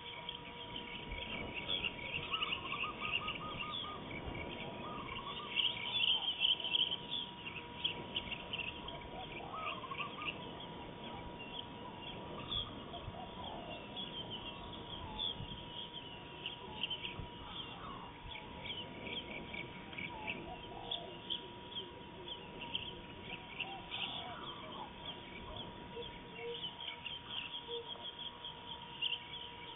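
Wild birds calling at dusk: a dense run of short, high chirps with scattered lower calls, over a faint steady whine, heard through a surveillance camera's thin-sounding microphone.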